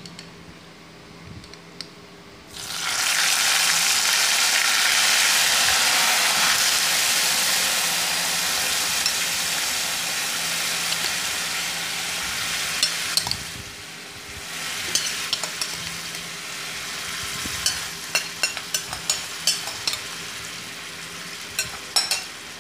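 Boiled urad dal and chopped banana stem poured into a kadai of hot oil tempered with garlic paste, panch phoron and dried red chillies. A loud sizzle starts suddenly about two and a half seconds in, holds for about ten seconds, then dies down. Near the end a spatula stirs the mixture, clicking and scraping against the pan.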